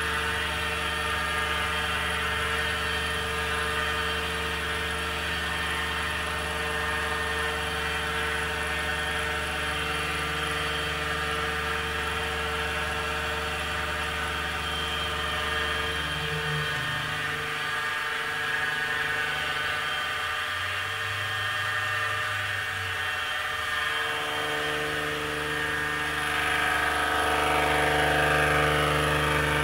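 Benchtop CNC milling machine running a program: the spindle motor hums steadily as the end mill cuts aluminum, with the axis motors whirring as the table feeds the part. The low tones shift in the middle, and the sound grows slightly louder near the end.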